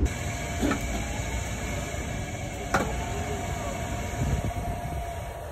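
MBTA Green Line light-rail car under its overhead wire: a steady hum, with two sharp snaps about two seconds apart.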